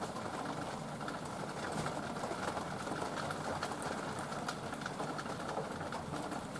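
Hot water pouring from an electric kettle into a small cup during the second half, over a steady background hiss.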